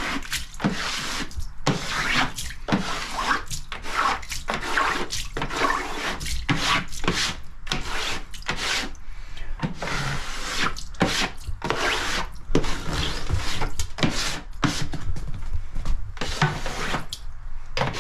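Hand squeegee dragged in quick, uneven strokes across a wet varnished wooden floor, its blade rubbing on the boards and sweeping the water along.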